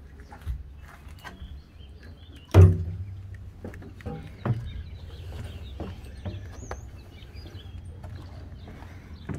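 Footsteps and handling knocks aboard a tug while walking out through the doorway onto the side deck. There is one heavy thump with a short low ring about two and a half seconds in and a smaller one about two seconds later, over a steady low hum, with birds chirping faintly in the background.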